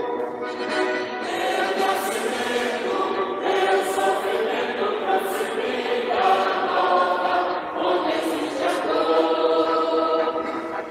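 Church choir of men and women singing a hymn together, in long held notes.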